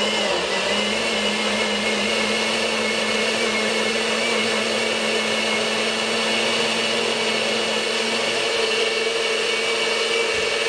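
Electric blender running steadily at one speed, puréeing a marinade of garlic, onion, bell pepper, soy sauce, lemon juice and oil.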